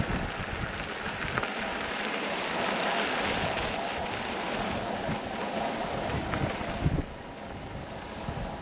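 Wind buffeting the microphone while riding an electric unicycle along a dirt track, a steady rushing with gusty low rumbles. A short thump comes about seven seconds in, after which the rushing is a little softer.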